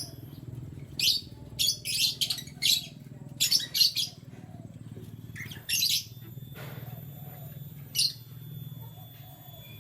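Canaries giving short, high chirps in quick clusters over the first few seconds, then only a few single chirps, over a steady low hum.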